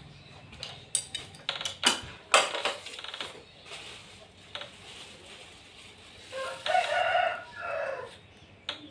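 Several sharp knocks and clatter in the first three seconds as the air conditioner's refrigerant pipes are worked into place at the wall bracket, then a drawn-out animal call in two parts near the end.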